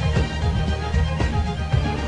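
Background soundtrack music with a steady beat and sustained instrumental lines.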